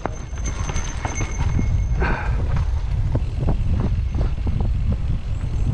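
Mountain bike rolling over a rough dirt trail: a steady low rumble of wind and tyre noise with many quick clattering knocks from the bike bouncing over the ground.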